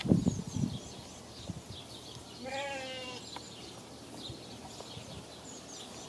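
A goat bleats once, a short wavering call about two and a half seconds in, over faint bird chirps. A few close, dull bumps and rustles come at the start.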